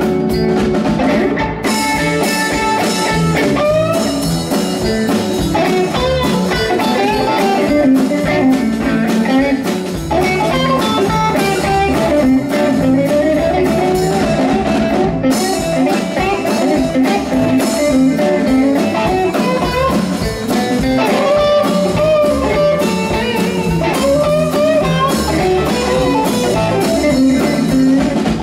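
Live blues band playing an instrumental stretch: electric guitar lead lines over electric bass and drum kit.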